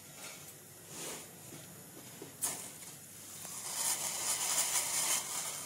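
A cup of sugar poured into a steel pot of hot water: a grainy hiss from about three and a half seconds in, lasting under two seconds and the loudest thing here. A single sharp tap comes just before it.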